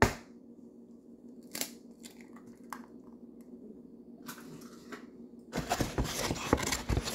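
Handling noises at a kitchen counter: a sharp click, then a few scattered taps and clicks, then about a second and a half of dense crunching, rustling noise near the end.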